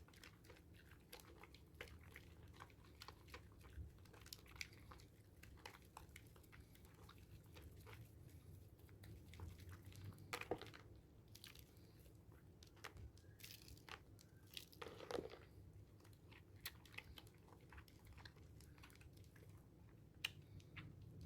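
Faint wet crackling and squishing of hard handmade sea salt and charcoal soap being lathered into a thick foam, with two louder squelches about ten and fifteen seconds in.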